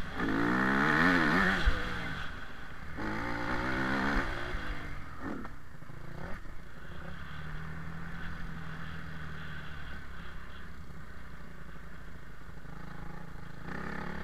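Off-road motorcycle engine heard from the bike itself, revving up and down in several bursts, then running steadily at lower revs, with the revs climbing again near the end. A sharp knock about two seconds in.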